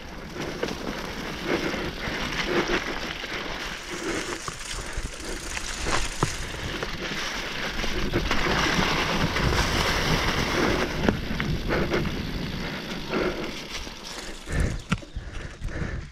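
Mountain bike riding downhill over a leaf-covered dirt trail: steady tyre noise on leaves and dirt, with rattles and knocks from the bike over bumps, loudest about halfway through.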